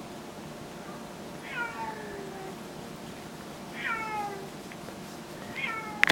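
A kitten meows three times, about two seconds apart, each meow falling in pitch. A sharp, loud knock comes right at the end.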